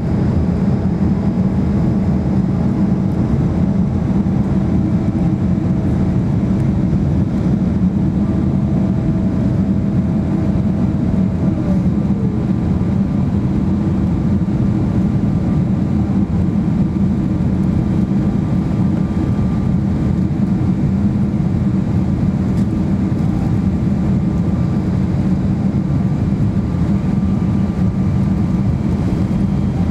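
Boeing 777-300ER cabin noise heard from a seat over the wing on approach with flaps extended: a steady, loud rush of airflow and engine hum. A faint tone in the engine noise slides lower about twelve seconds in.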